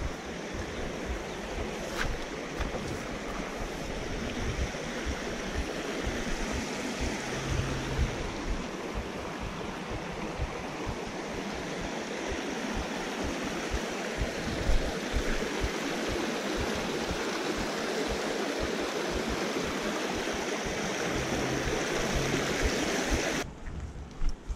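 Creek water rushing over rocks, a steady rush that grows gradually louder, with low thumps underneath; it stops abruptly about a second before the end.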